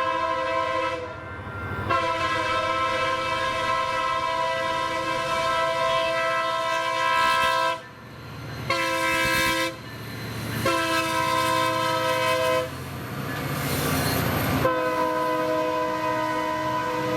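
Union Pacific locomotive's multi-chime air horn sounding a grade-crossing warning: two long blasts, a short one, then a long one, followed by another long blast near the end. Between the last two blasts, the passing locomotive and rolling train make a rumbling, rail-clattering noise.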